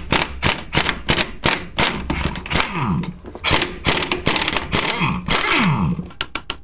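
KS Tools pneumatic impact wrench hammering on a front-suspension bolt whose head is held with a ratchet, in short bursts over a steady run of sharp clicks about four a second. Two longer bursts come about three and a half and five seconds in, each ending as the air motor winds down with a falling whine.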